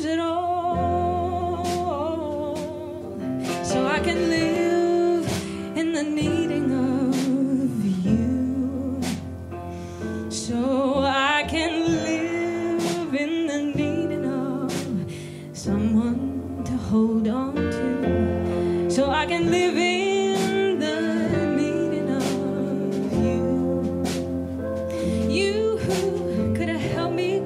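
Live small jazz band, with grand piano, double bass, drums and saxophone, playing an instrumental passage between vocal lines: a wavering lead melody over a steady accompaniment and light drum strokes.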